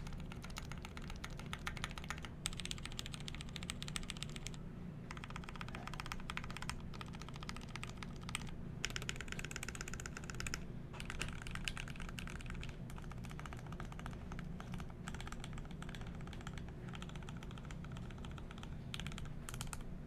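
Typing on a GMMK Pro mechanical keyboard: lubed Gateron Milky Top Black linear switches with 75g springs, an aluminum plate with the case and plate foam removed, and ABS keycaps. The keys clack in fast runs with brief pauses every couple of seconds.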